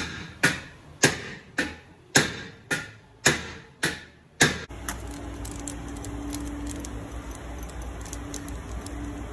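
Hammer blows on metal, about nine strikes at roughly two a second, each ringing briefly. They stop suddenly about four and a half seconds in, giving way to a steady low background rumble with a faint hum and a few light ticks.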